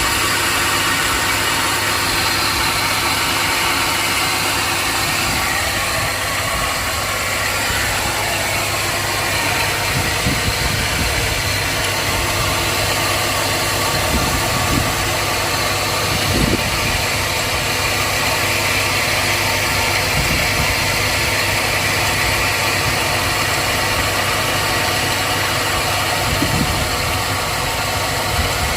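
2002 Chevy Silverado's Vortec V8 gas engine idling hot, with a grinding, ticking noise running through it and a few sharper knocks standing out. The owner suspects a bearing.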